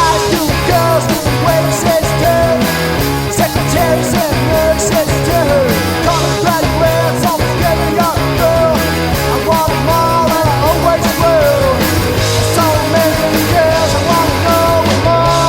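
Rock music recording: a band with electric guitars and drums playing steadily.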